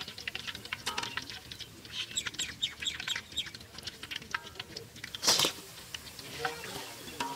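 Hot oil crackling in an iron kadai as battered rabbit pieces deep-fry over a wood fire, with small birds chirping. A short, louder noise comes about five seconds in.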